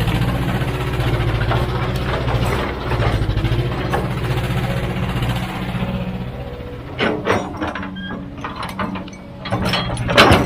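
Heavy machine's diesel engine running steadily, then from about seven seconds in a run of sharp metallic clanks and knocks.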